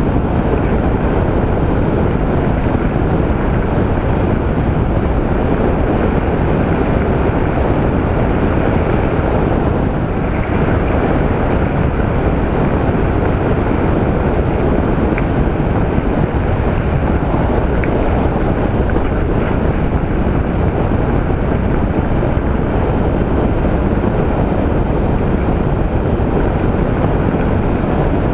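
Steady rush of wind on a helmet-mounted microphone, which has a makeshift ShamWow cloth windscreen, while riding a Honda ST1300 motorcycle at road speed, with engine and road noise underneath.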